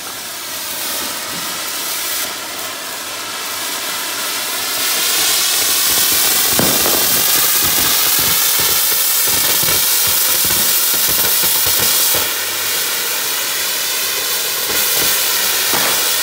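A firework spraying sparks with a loud continuous hiss that builds over the first few seconds and then holds, with scattered crackling in the middle.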